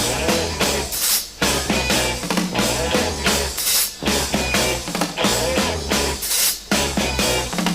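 Instrumental passage of a rock song: a drum kit keeping a steady beat under bass and guitar, with no vocals.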